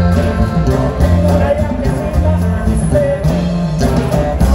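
Live regional Mexican band with accordion, electric guitars, bass and drums playing loudly through a PA, a bass line stepping between notes under the melody, with some singing.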